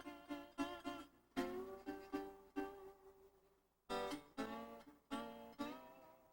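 Quiet background music of slow, separately plucked guitar notes that ring and fade, with a brief pause about halfway through.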